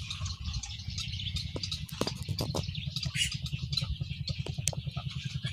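A colony of nesting waterbirds calling, a busy chatter of many short clicks and chirps with a few sharper clicks about two seconds in. A low, steady pulsing throb runs underneath.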